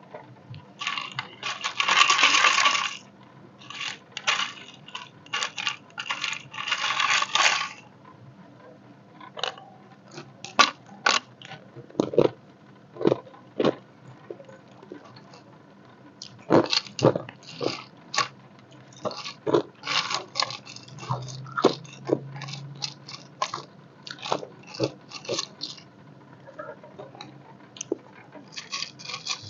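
Ice cubes being bitten and crunched between the teeth: two dense runs of crunching in the first several seconds, then single sharp cracks and crunches spaced irregularly.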